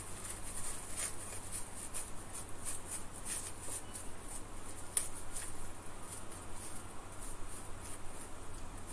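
Small parts from a vintage calculator keypad being handled on a workbench: faint, irregular light clicks and scratches, with one sharper click about five seconds in, over a low steady hum.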